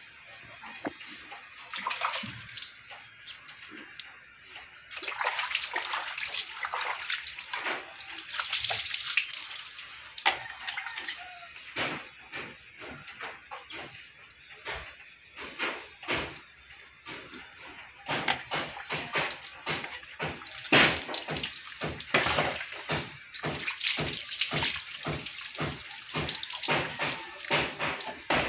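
Water splashing and dripping off a wet cat being washed by hand over a wire cage, with many short irregular splashes and a few longer spells of pouring water.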